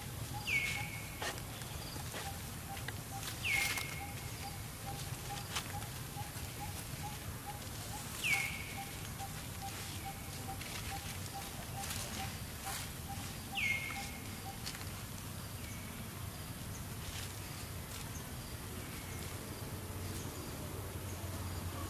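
Outdoor animal calls: four short high calls a few seconds apart, each dropping quickly in pitch and then holding briefly. Under them runs a steady, rapid string of short notes at one lower pitch, which stops about two-thirds of the way through.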